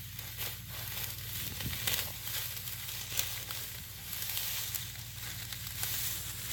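Dry wheat stalks rustling and crackling as wheat is cut by hand, with irregular sharp snaps, over a low steady hum.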